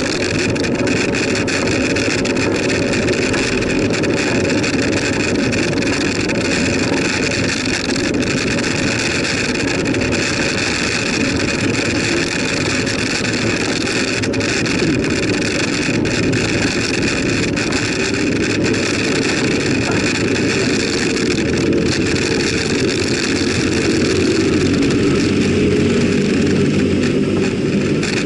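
Steady wind and road noise on the microphone of a camera mounted on a moving bicycle, loud and unbroken, swelling slightly near the end.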